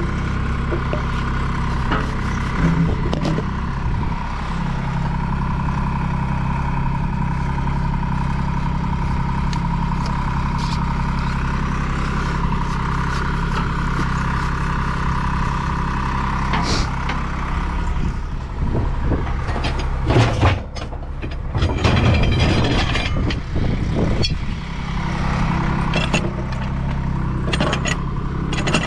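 Service truck engine running steadily at idle, a constant low hum with a steady higher whine over it. Through the second half, scattered knocks and scrapes of a threaded fitting and a pipe wrench being handled on the steel pipe.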